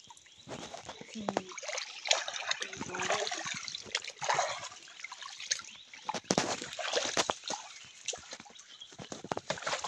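Rubber boots wading through shallow stream water, splashing irregularly with each step.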